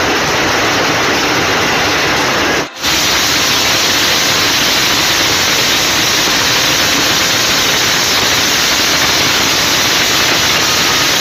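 Loud, steady rushing of storm water and heavy rain, with one brief dip about three seconds in.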